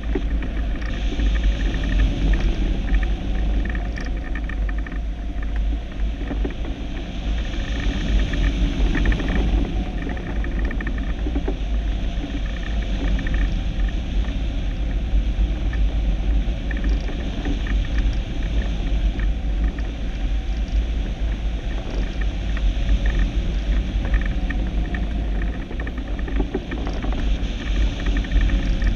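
Wind buffeting the microphone: a steady low rumble with a hiss above it, swelling and easing in gusts every few seconds.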